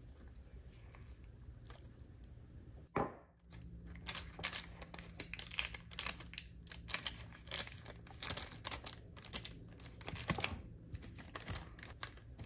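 A spatula scraping and pressing thick raw chocolate cake mixture into a parchment-lined pan, with the parchment paper crinkling in a run of short scrapes. A single knock about three seconds in comes before the scraping.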